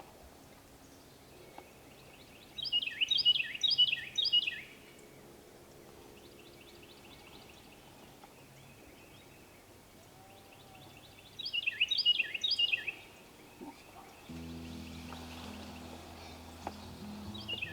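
A songbird singing twice, about eight seconds apart: each song is about two seconds of rapid, repeated descending notes. Near the end, low background music comes in.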